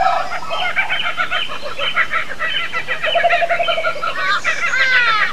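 A jumble of animal-call sound effects: fast chattering and squawking calls throughout, a short rapid cackle a little after three seconds in, and several falling whistling calls near the end.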